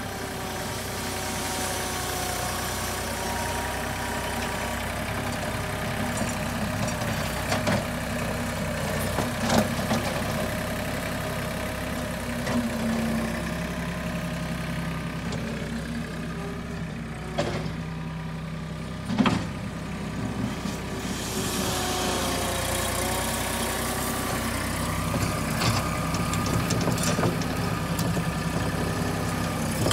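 Compact tractor's diesel engine running steadily as its front loader pushes dirt, its note dropping for several seconds midway and then coming back up. A few sharp knocks stand out now and then.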